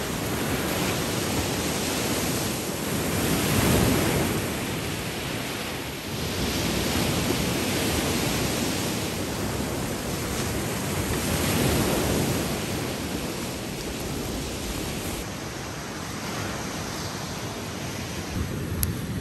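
Ocean surf breaking and washing up a sandy beach, the rushing noise swelling with each wave, loudest about four seconds in and again around twelve seconds. It is quieter in the last few seconds.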